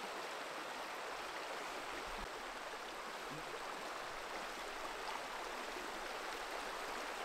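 Shallow, stony river flowing fast over rocks: a steady rushing of water.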